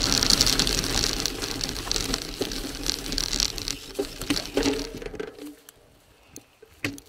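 A bicycle rolling over a loose gravel track: steady tyre crunch and rattle with a low wind rumble, dying away as the bike slows and stops about five seconds in, leaving a few small clicks.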